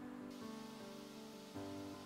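Instrumental background music with sustained notes; a new, louder chord comes in about one and a half seconds in.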